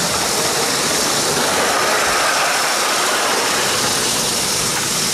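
LEGO high-speed train's electric motor and wheels running on plastic LEGO track close by, a steady whirring noise with a slight swell about two seconds in.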